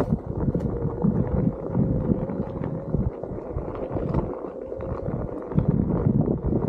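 Onewheel GT S-series electric board climbing a dirt trail: its hub motor gives a steady faint whine over the rumble of the tyre on dirt and wind buffeting the microphone.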